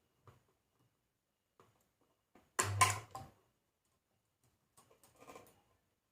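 Homemade transformer spot welder firing once, about two and a half seconds in: a short, loud mains buzz with crackling snaps as the weld current passes through the nickel strip on a lithium-ion cell. A fainter crackle follows near the end.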